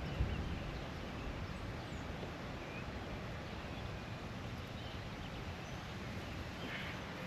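Steady outdoor background noise with a low rumble, and a few faint short bird calls.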